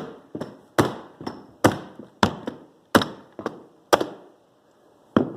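Mallet blows on a manual flooring nailer driving nails into hardwood flooring boards: about six hard knocks, most followed by a lighter one, then a brief pause and one more knock near the end.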